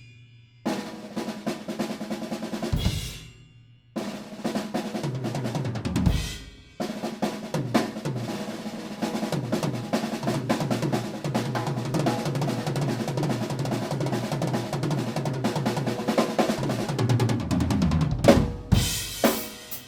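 Acoustic drum kit solo. Short phrases are broken by brief pauses in the first seven seconds, then comes a long run of fast fills on snare and drums with bass drum, closing on cymbal crashes near the end.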